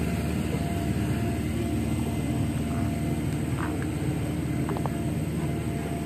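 Steady low engine rumble with a faint even hum and no change in pitch, likely construction machinery working on the road, with a few faint clicks around the middle.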